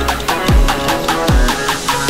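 Electronic dance music in a drum and bass style, with a steady beat of deep bass-drum hits that drop in pitch, about two or three a second, under synth lines.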